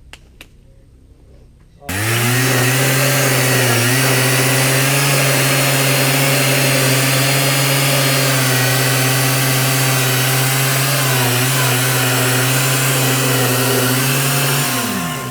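Gasoline engine of a homemade band sawmill built from an old golf cart, cutting in abruptly about two seconds in and then running steadily at high speed. Near the end its pitch drops sharply.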